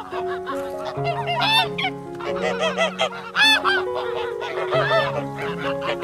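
Waterfowl calling in a rapid run of short nasal calls, several overlapping, over soft background music.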